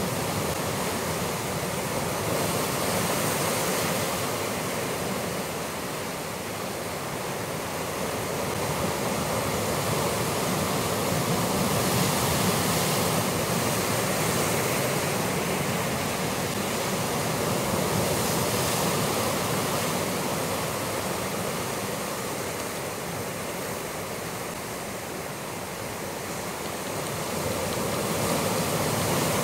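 Ocean surf breaking and washing over a rocky shore, a steady rush of noise that slowly swells and eases.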